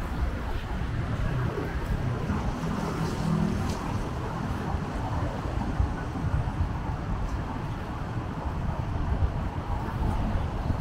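City street ambience: a steady low rumble of traffic, with wind buffeting the microphone.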